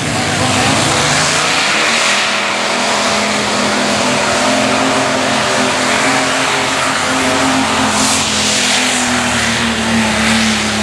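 Multi-engine modified pulling tractor's engines at full throttle as it pulls the sled down the dirt track. The engines climb in pitch about a second in, then hold a steady, loud, dense run.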